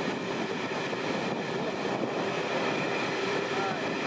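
A train running past at a steady speed: a continuous rumble of wheels on rail with a couple of steady tones held over it.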